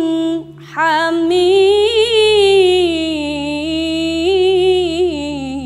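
A young woman reciting the Qur'an in melodic tilawah style, drawing out the closing words "ghaniyyun hamid" in one long ornamented phrase with wavering turns. There is a short breath about half a second in, and the pitch steps down near the end as the phrase resolves.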